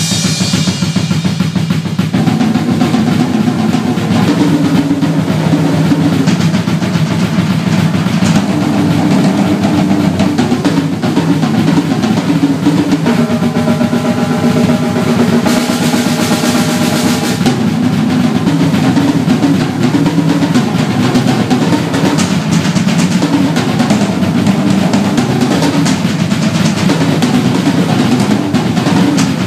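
Acoustic drum kit solo: continuous fast single-stroke rolls spread across snare, toms and bass drums in interlocking hand-and-foot patterns. A cymbal rings at the start, and another cymbal washes over the drums for about two seconds around halfway.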